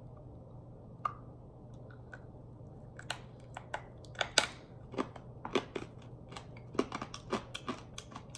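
A person crunching and chewing a small pink capsule-shaped candy: a single click about a second in, then a run of irregular sharp crunches and clicks from about three seconds in, over a faint steady hum.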